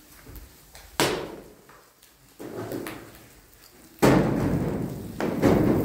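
A metal spatula knocking against a frying pan over a wood fire, two sharp knocks, then from about four seconds in food sizzling loudly in the pan as it is stirred.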